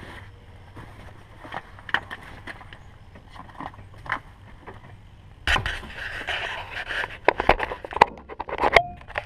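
Scattered clicks and knocks in a small aircraft cockpit over a faint steady low hum. About five and a half seconds in, a hand grabs the cockpit-mounted action camera and it is pulled off its mount, giving a stretch of scraping and rubbing with sharp knocks.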